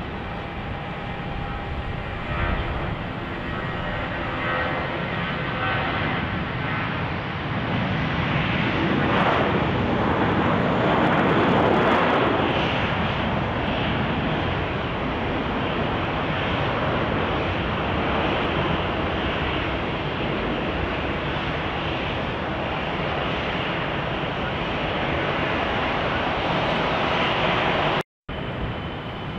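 Airbus A320 jet engines at takeoff power: a steady roar with a whine at first, building to its loudest about ten seconds in, then easing a little as the jet climbs away. It cuts out suddenly near the end.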